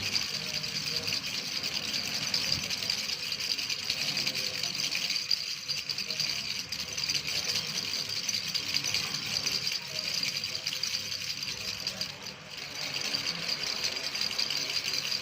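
Baby rattle shaken steadily, a fast, continuous rattling of small loose pieces inside, with a short dip about twelve seconds in.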